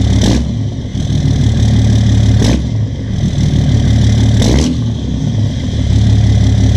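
A loud engine running with a deep, steady drone, broken by three brief sharp bursts about two seconds apart.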